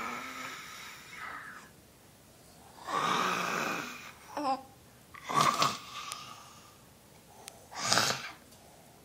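A child and mother making playful monster noises with their voices: a series of breathy, raspy growls and roars with pauses between them, and a short squeaky cry among them.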